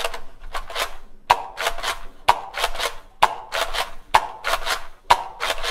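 Nerf blaster firing foam darts in a steady rhythm: a sharp snap about once a second, each followed by a couple of lighter clacks.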